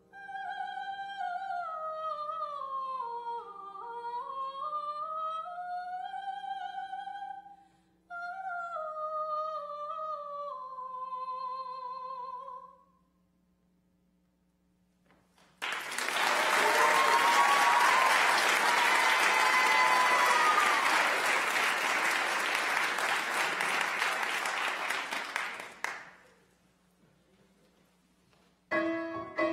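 Soprano singing the last two phrases of an art song with a wide vibrato, the second phrase sinking to a held low note. After a short pause the audience applauds for about ten seconds. Near the end a piano begins playing.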